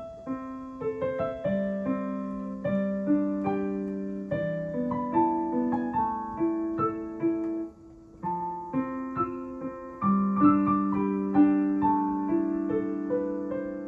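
Solo piano music: a melody of single notes over held low notes.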